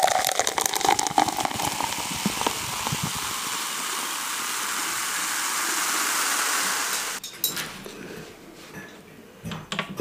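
Liquid pouring and splashing with drips, then a steady hiss, like fizzing or sizzling, that stops abruptly about seven seconds in, followed by faint scattered clicks.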